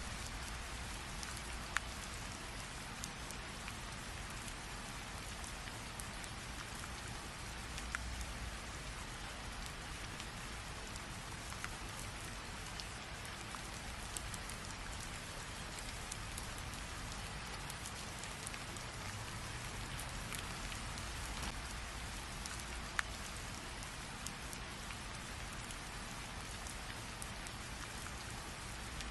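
Steady rain falling, an even hiss with now and then a sharp single drop tick, such as about two seconds in and near the three-quarter mark.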